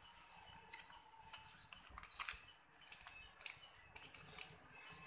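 A small animal's high, short chirp repeated about twice a second, with faint paper rustling as a folded paper boat is pulled open.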